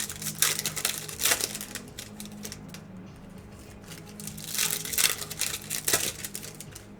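Foil trading-card pack wrappers crinkling and tearing in several short bursts as packs are opened.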